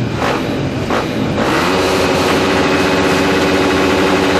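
Several motocross motorcycle engines running together on the start line: a few short rev blips in the first second or so, then the engines held at a steady, constant rev while the riders wait for the gate to drop.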